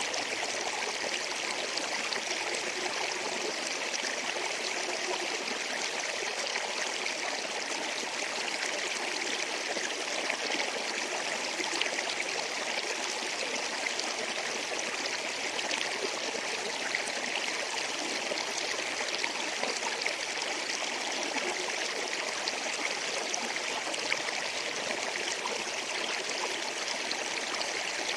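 River water flowing over rocks: a steady, even rush with fine splashing and babbling.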